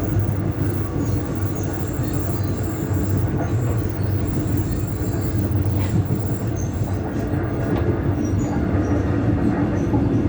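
Taiwan Railways EMU600 electric train running, heard inside a carriage as a steady rolling rumble with short high squeals now and then. The onboard PA speaker has been left on, feeding the motor car's traction sound into the trailer car.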